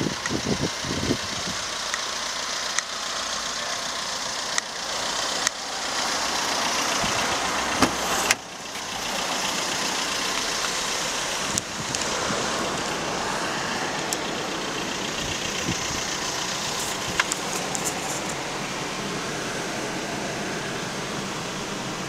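Steady rush of passing road traffic, with a few sharp clicks and knocks scattered through it, the loudest about eight seconds in.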